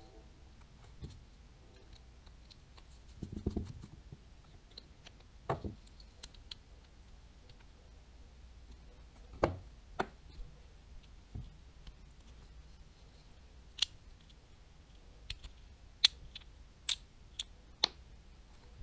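Scattered sharp clicks and light knocks from the small parts of a Daiwa Tatula 100 TWS baitcasting reel being handled and fitted. There is a dull bump about three seconds in and a run of quick clicks near the end.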